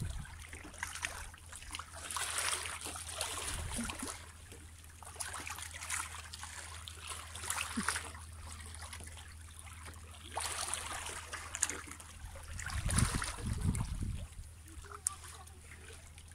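Small sea waves lapping and washing against shoreline rocks, swelling in irregular surges every few seconds.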